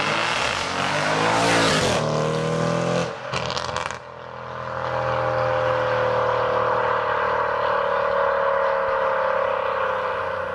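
Audi RS6 Avant engine revving hard under full acceleration, its note rising for about two seconds. After a break it holds a steady note that slowly drops in pitch and fades as the car pulls away.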